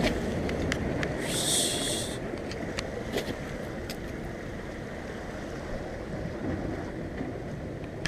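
Ocean surf washing against the jetty under wind on the microphone, a steady rumbling wash with a brief hiss about a second in and a few light clicks.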